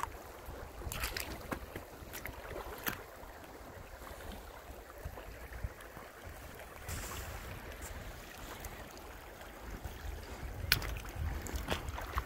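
Wind rumbling on the microphone, with a few short crunches or clicks scattered through it.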